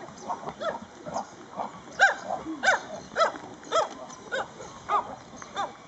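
An animal giving a regular series of short, loud calls, nearly two a second, which grow louder about two seconds in.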